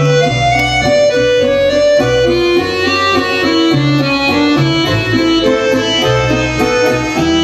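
Instrumental music: a melody moving over a bass line that repeats in a steady beat.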